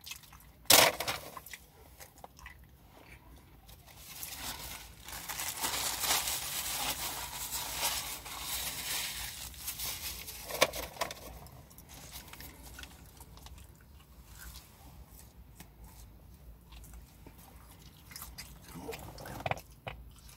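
Close-up chewing and crunching of fast food (a Five Guys meal), wet mouth sounds and crackly bites, loudest in the middle stretch, with a sharp click about a second in.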